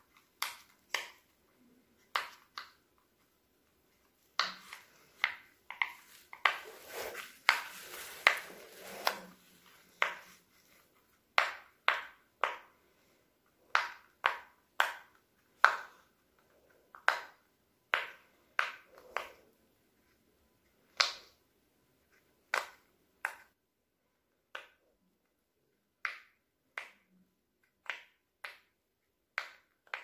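Silicone pop-it fidget toy's bubbles pressed one at a time by a finger, each giving a sharp little pop. The pops come about one or two a second, with a quicker run of pops a few seconds in.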